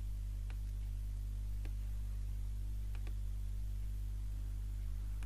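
Steady low electrical hum, with a few faint clicks about a second apart.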